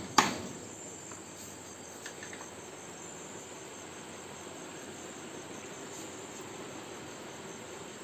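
Crickets chirping steadily, a faint high trill, with one sharp knock right at the start.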